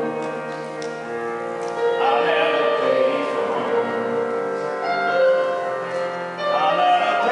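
A young man singing a pop song into a microphone over a hall PA, with upright piano accompaniment; the voice holds long notes and bends in pitch.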